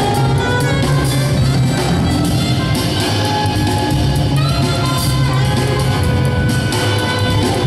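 Live avant-garde jazz trio playing: saxophone lines over a plucked upright double bass and a drum kit with cymbals.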